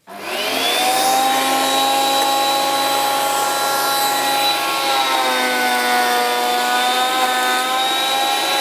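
Parkside PADM 1250 A1 planer-thicknesser starting up, its motor rising to a steady high whine within about a second. About five seconds in its pitch drops slightly as the cutter block takes the board in thicknessing mode.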